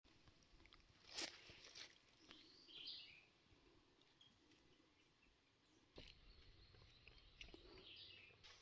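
Very faint outdoor ambience with a few soft clicks and two brief high bird chirps, one about three seconds in and one near the end.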